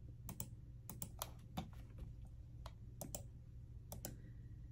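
About a dozen sharp, irregularly spaced clicks from a computer being operated by hand, over a low steady hum.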